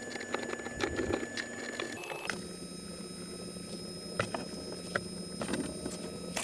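Faint clicks and taps of hands working CPVC pipe and fittings, over a steady faint whine. The background tone changes abruptly about two seconds in.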